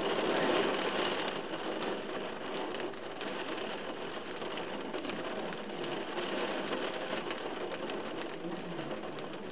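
Heavy rain falling, a steady hiss dotted with the patter of many drops, heard from behind a window.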